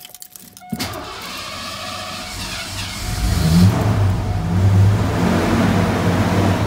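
1988 Ford F-150 truck engine being started: the starter cranks for about two seconds, the engine catches about three seconds in and then runs with a few light revs.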